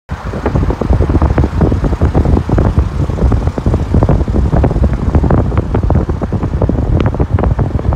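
Car travelling at speed, heard from inside: loud road and wind rumble with constant irregular buffeting.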